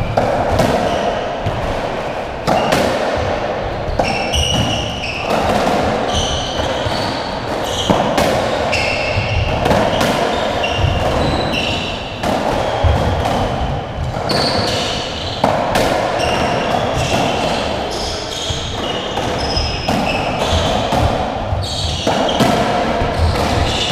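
A UK racketball (squash 57) rally on a squash court: repeated sharp hits of racket on ball and ball against the walls, every second or two, with shoes squeaking on the wooden floor between them.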